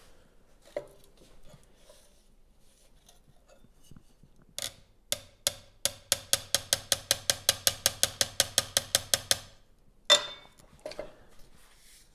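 Small hammer tapping a stainless steel trim strip against a flat steel bar to knock out a small dent. Around halfway through come a few separate taps, then a fast even run of about six taps a second for some three and a half seconds, then one louder ringing blow and a last lighter tap.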